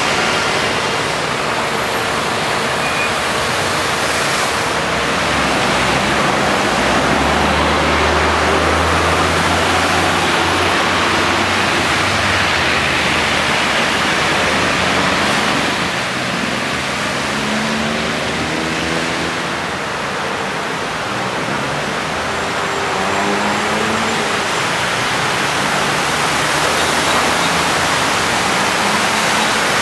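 Traffic driving through a flooded street: car and truck engines running and tyres swishing through standing water, heard as a steady wash of noise, with a heavier engine hum about seven to twelve seconds in.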